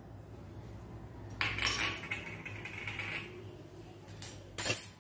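Metal spoon scraping crushed cardamom out of a small ceramic bowl, a short scratchy scrape about a second and a half in that fades over the next second. Near the end comes one sharp clink of crockery.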